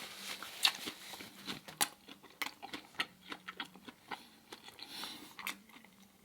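Close-up chewing and mouth sounds: irregular wet clicks and smacks as food is chewed, with a faint steady hum underneath.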